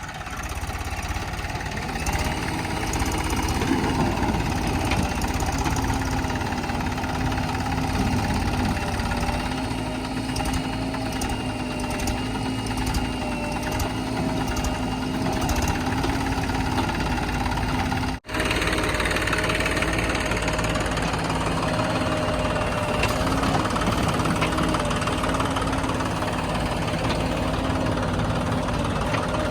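JCB 3DX backhoe loader's diesel engine running steadily while working, its pitch wavering a little as the load changes, with a momentary break about two-thirds of the way through.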